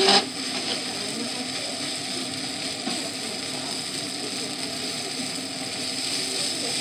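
Black plastic spatula stirring and scraping fried noodles and rice around a frying pan: a steady rough scraping, with a sharp knock against the pan right at the start.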